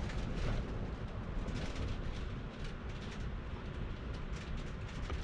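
Steady low rumbling noise of wind, with faint scattered clicks and rustles.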